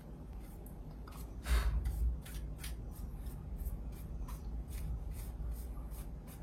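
Hands fitting plastic mounting pieces onto a 2.5-inch SSD: a rustle about a second and a half in, then a run of small plastic clicks, about three a second.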